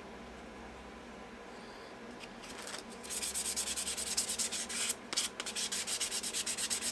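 Fine-grit abrasive pad rubbed by hand over a cast resin-and-burl handle, hand sanding. The rapid back-and-forth strokes start about three seconds in, at roughly five a second, with a brief pause in the middle.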